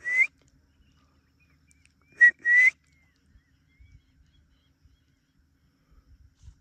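An elephant carer whistling twice, about two seconds apart, to call the herd in. Each whistle is a short note followed by a longer rising one.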